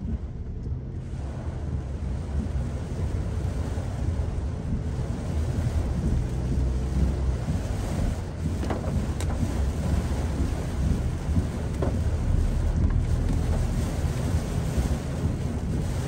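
A car driving in a typhoon downpour, heard from inside: heavy rain on the body and tyres on the flooded road over a steady low rumble, with a few short ticks about halfway through.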